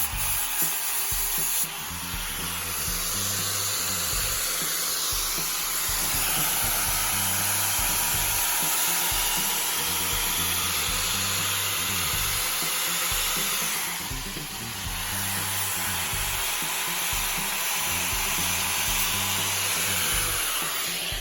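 Power grinder with a flap wheel grinding the edge of a steel lawn mower blade, a steady high hiss that eases briefly about two-thirds of the way through. Background music with a steady bass beat plays underneath.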